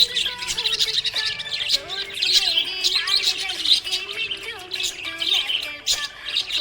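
Budgerigars chirping and warbling: a dense, unbroken stream of quick high chirps and trills.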